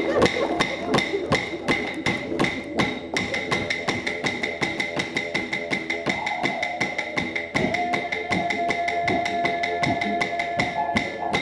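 Didgeridoo drone with clapsticks struck in a steady beat of about three to four strikes a second. A higher held note joins about two-thirds of the way through.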